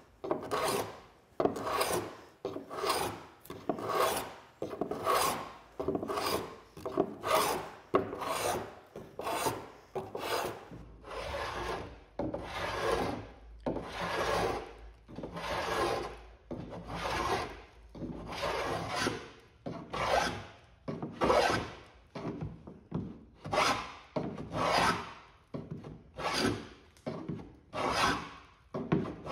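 Hand plane shaving the wooden outer stem of a small boat hull in repeated short rasping strokes, carving the stem down to match the keel's profile. The strokes come about two a second at first and slow to about one a second later on.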